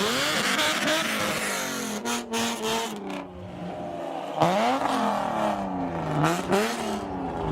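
Nissan Z sports car's VQ V6 engine revving hard, its pitch rising and falling several times, with the sharpest climb about four and a half seconds in.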